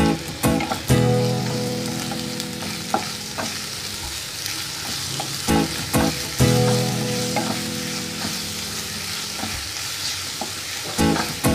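Grated onion and ginger-garlic paste sizzling in oil in a nonstick pan, stirred and scraped with a wooden spatula that knocks now and then against the pan. A low hum starts up about a second in, again about halfway, and once more near the end, each time fading slowly.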